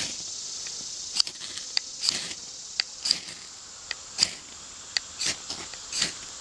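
Ferrocerium rod scraped with a knife, about a dozen quick, irregular rasping strikes throwing sparks into a shredded-bark tinder bundle to light it. A steady high insect drone runs behind.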